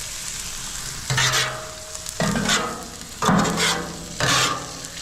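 Food sizzling steadily on a Blackstone flat-top griddle, with four louder scrapes of a spatula across the steel surface about a second apart as food is moved and stirred.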